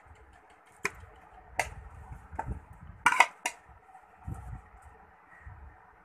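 Kitchenware knocking and clinking against a glass jug as grated green mango is tipped into it: about five sharp knocks, the loudest a quick double about three seconds in, then a softer thud.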